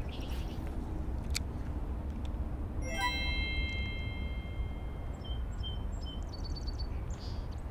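Outdoor ambience with a steady low rumble. A bright chime rings about three seconds in and fades over about a second. Short, high bird chirps come near the end.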